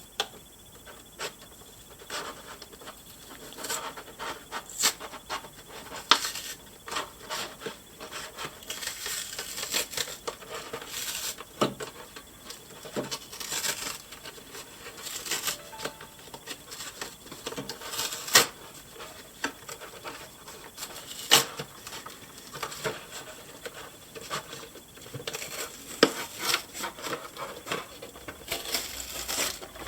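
Cardboard toy box and its plastic packaging being worked open by hand: irregular rubbing and scraping with many sharp clicks and snaps as the back of the box is pried and torn off.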